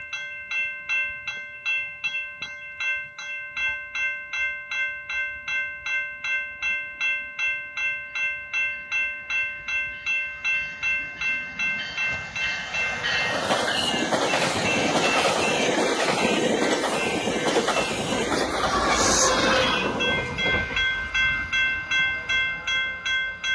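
Level-crossing warning bell ringing about twice a second as a GO Transit bi-level commuter train approaches and passes. About halfway through, the noise of the train's wheels and cars on the rails rises and covers the bell, peaks in a brief loud burst of noise as the train's end goes by, and then falls away, leaving the bell ringing on.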